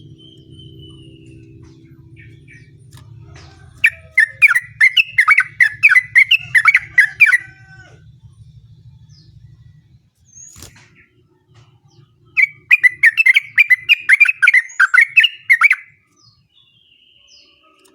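Yellow-vented bulbul (trucuk) singing a long, rapid run of repeated chattering notes, twice, each bout about three and a half seconds long. A faint low hum runs under the first half.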